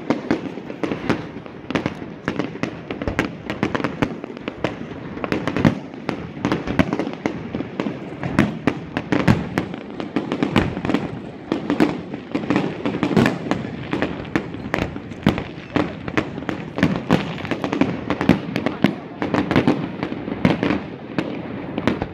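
Fireworks display: aerial shells bursting and crackling in quick succession, several bangs a second with no lull.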